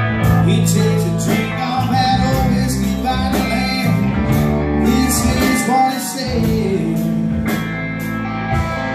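A live rock band plays an instrumental stretch between sung lines: electric guitars over a drum kit, with heavy low notes and cymbals struck in a steady rhythm.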